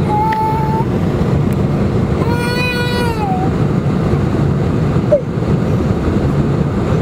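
Steady low drone inside the cabin of a four-engined jetliner on its landing approach: engine and airflow noise heard from a window seat over the wing. About two seconds in, a small child cries out once in a rising and falling wail lasting about a second.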